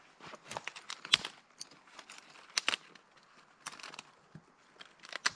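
Dry twigs and forest litter crackling and snapping underfoot and in hand: a run of sharp, irregular snaps, the loudest about a second in.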